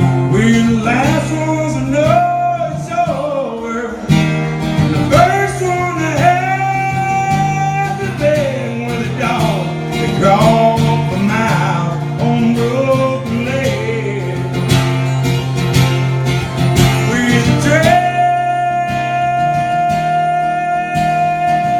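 Country band playing an instrumental passage: a lead line with bending notes rides over guitar and a steady bass, then settles on one long held note near the end.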